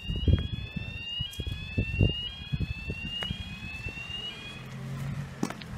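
Repeating high electronic alarm-like tone, each note rising slowly and restarting, stopping a little after four seconds in, over low thuds of footsteps while walking.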